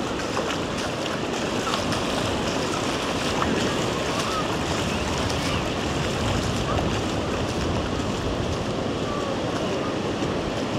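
Ocean surf breaking and washing onto a sandy beach, a steady, dense rush of waves.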